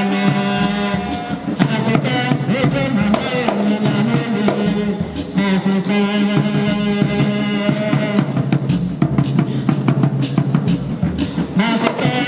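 Music with drums and a steady beat, held bass and melody notes over it.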